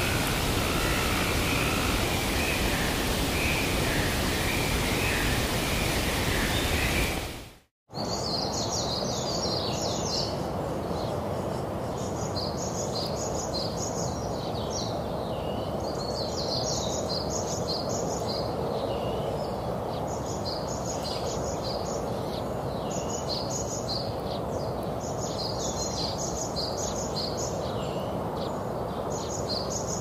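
Steady rushing hiss with faint bird calls for the first several seconds, then a brief dropout. After it, small birds chirp in repeated bursts of high-pitched calls over a steady background hiss.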